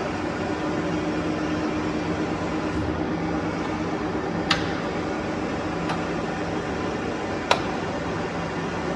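Sculfort Maxicap Senior parallel lathe running with a steady mechanical hum, with three sharp clicks in the second half.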